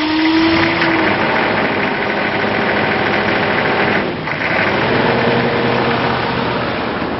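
Turbo diesel truck engine, just restarted, running and revving to about 2,000 RPM. The revs climb at first, drop briefly about four seconds in, then rise again and hold. It is running again with a remote-mounted PMD (the injection pump's fuel solenoid driver) plugged in, which the owner hopes cures the stalling.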